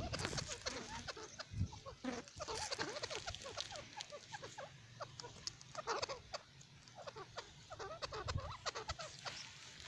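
Francolin (teetar) calling: a dense run of short clucking notes, with louder clusters every couple of seconds.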